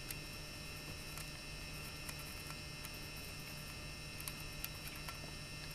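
Steady low electrical hum, with a few faint light ticks as a pencil marks a nodal line on a wooden marimba bar.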